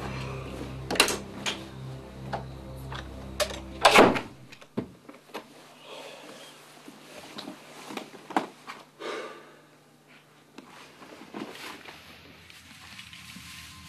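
Background music that cuts off about four seconds in with a loud door slam, followed by scattered small clicks and knocks.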